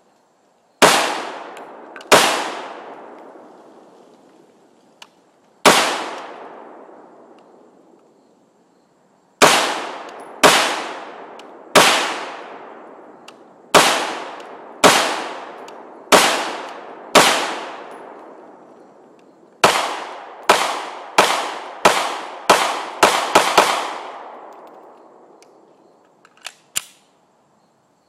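Semi-automatic firearm fired in single shots, about eighteen in all, each with a long echoing tail. The shots come slowly at first, then faster, in a quick string about three-quarters of the way through. A couple of small clicks follow.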